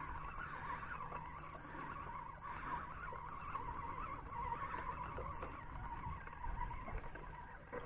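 Spinning fishing reel being wound in steadily as a fish is brought up, a continuous whirring whine that stops near the end.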